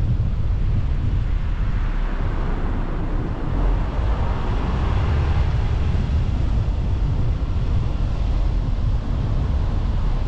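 Wind rumbling on the microphone of a camera riding on a moving car, over steady road and vehicle noise; the noise swells for a few seconds in the middle.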